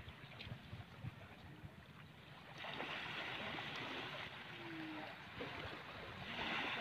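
Outdoor hiss of wind and shallow water at the shoreline, which grows louder about two and a half seconds in and again near the end.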